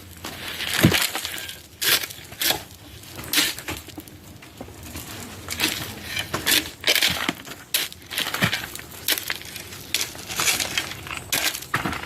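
Irregular gritty crunching and scraping strokes, some with light clinks, coming every half second to a second.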